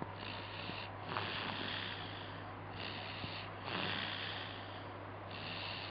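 Snoring in sleep: noisy breaths in and out alternate, shorter ones and longer ones, about five in all.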